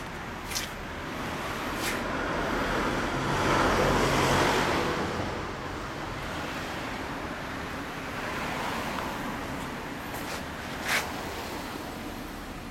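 Road traffic noise, with a vehicle passing by that swells to its loudest about four seconds in and then fades. A few sharp clicks stand out over it.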